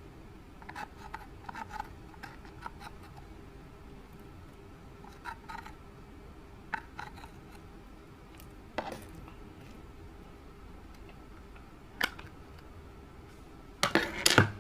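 Scattered small clicks, taps and scrapes of makeup and slime being handled and mixed by hand. A louder burst of scraping and crackling comes near the end.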